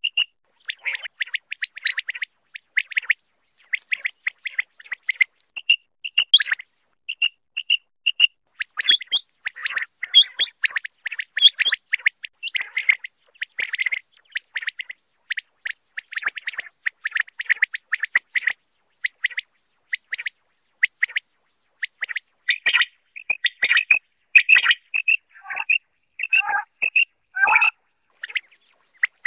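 Common quail calling: a fast, dense run of short, high chirps and clicks. Near the end several notes drop lower in pitch.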